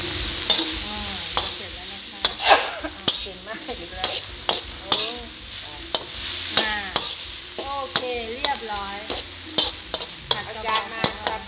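Minced pork, chillies and holy basil sizzling in a hot wok while a slotted metal spatula stirs them fast, with frequent clicks and short pitched scrapes of metal on the wok over a steady hiss.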